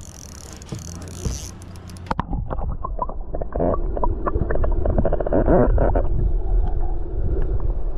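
Heard underwater: a loud, muffled low rumble with gurgling water and scattered clicks and knocks, which starts about two seconds in. Before that there is a steady low hum with a hiss.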